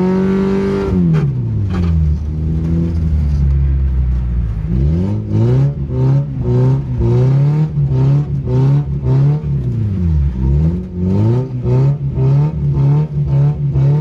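Toyota Cynos's 5E-FHE four-cylinder engine revving up and down under hard throttle work during a drift, heard from inside the cabin. The revs are held high at first and drop about a second and a half in. From about five seconds in they rise and fall in quick repeated blips, roughly one a second.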